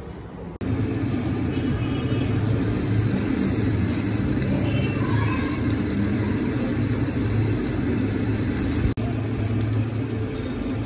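Metal lathe running with its cutting tool taking a cut on a large spinning metal workpiece: a steady low hum and rumble that starts suddenly about half a second in, with a brief dropout near the end.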